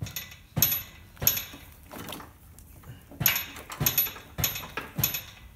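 Sharp metallic clanks and clinks, about seven in an uneven rhythm roughly every half-second to second, as the engine hanging on an engine crane is worked into line with the transmission bell housing.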